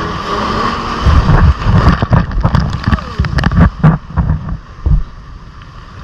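Sea water surging and splashing over the rocks, a loud rushing burst with sharp crackles that rises about a second in and eases off near the end, with wind buffeting the microphone.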